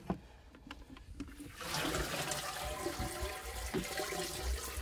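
A few light plastic clicks, then from about a second and a half in, water streaming and splashing out of the slotted sides of a plastic minnow bucket as it is lifted out of a boat's aerated bait well.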